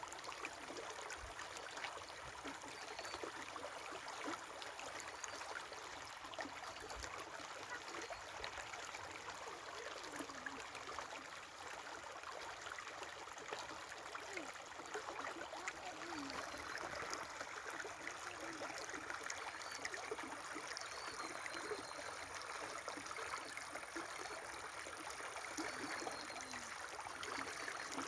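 River water flowing and babbling steadily, with a few faint high bird chirps in the second half.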